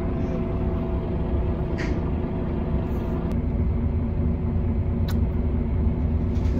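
Bus running, heard from inside the passenger cabin: a steady low rumble of engine and road with a constant hum, and a couple of brief clicks or rattles.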